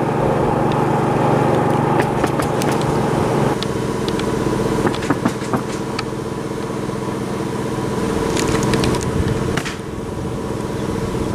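A motor or engine running steadily, its tone changing about a third of the way in, with scattered light clicks and taps.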